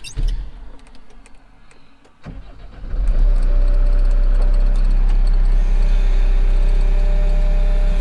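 Skid steer loader engine starting a little over two seconds in, then running loud and steady, heard from inside the cab.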